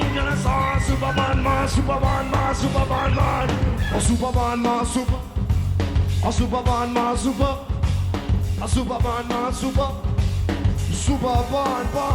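Live rock band music: a steady drum beat and heavy bass under a wavering melodic line, with no words sung.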